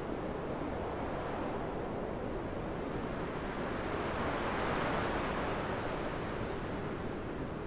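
Ocean surf: a steady wash of waves, swelling as a wave comes in about four to five seconds in and then easing back.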